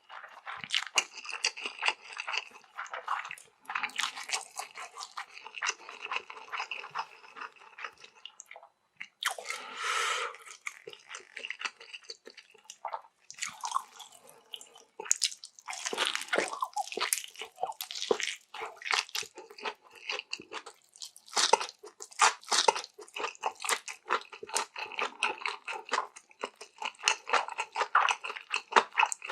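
Close-miked eating sounds of a person eating spicy noodles: steady chewing with many small wet clicks and smacks. A longer noisy rush comes about ten seconds in.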